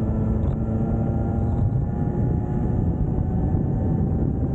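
Motorbike carrying two riders at a steady cruise: wind buffeting the microphone, with the engine running at an even, steady pitch underneath.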